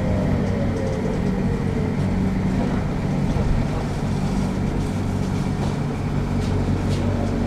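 On board a Mitsubishi Crystal Mover C810 rubber-tyred people mover pulling away from a station: a steady low running hum and rumble. A pair of thin tones, typical of its Mitsubishi IGBT-VVVF traction inverter, glide down and fade out about a second in.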